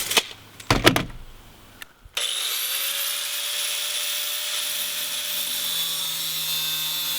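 A few knocks from handling, then about two seconds in an angle grinder switches on. Its pitch rises quickly as it spins up, then it runs steadily while cutting a length of half-inch pipe.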